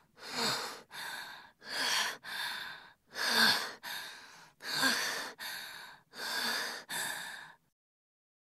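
A boy's voice breathing hard in gasps and sighs: five times a louder gasp and then a softer one, about one and a half seconds apart, stopping abruptly near the end.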